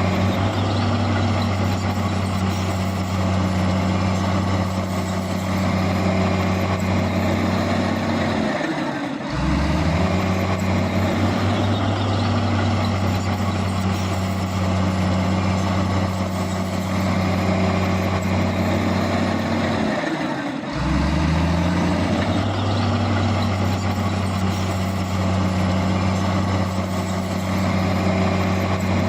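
Heavy diesel engine of earthmoving machinery working under load, with a steady low hum and broad mechanical noise. Twice, about a third and two-thirds of the way through, the engine note drops briefly and then climbs back.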